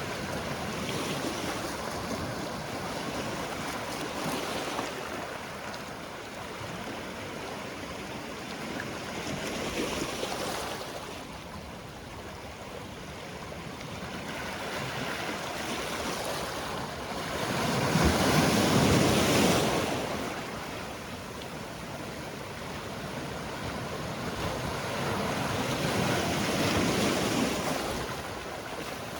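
Sea waves washing onto a rocky shore in slow surges, one every several seconds. The largest swell comes about two-thirds of the way through.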